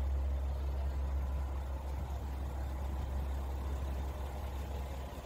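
Diesel railcar engine idling: a steady low hum.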